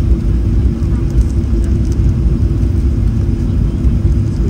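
Steady low rumble inside the cabin of a Boeing 737-700, with a steady hum from its CFM56-7B engines.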